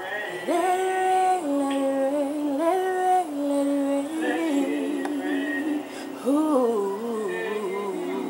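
A woman singing a slow gospel song, holding long notes with upward scoops into them, one about half a second in and another a little after six seconds.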